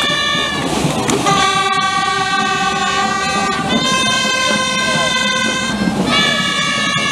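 Gralles, Catalan double-reed shawms, playing a slow tune of long held notes, each note lasting a second or two before moving to the next.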